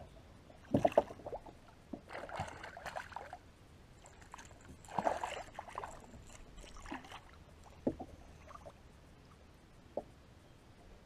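A hooked walleye splashing and thrashing at the water's surface beside a boat in several separate bursts, with a couple of sharp knocks about a second in.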